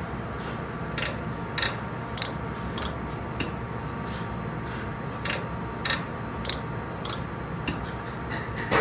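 Truck turn-signal flasher clicking at a steady pace, a bit under two clicks a second, with a pause near the middle. A steady low hum runs under it.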